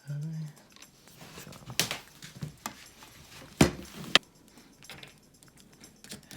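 A few sharp clicks and taps of small hard parts being handled on a workbench, the loudest about three and a half seconds in, with faint rustling between them.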